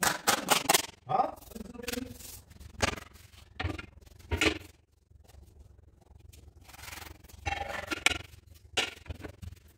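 Masking tape being pulled off the roll and rubbed down by hand onto a polished granite countertop: a series of short scraping rips with pauses between them, quieter in the middle.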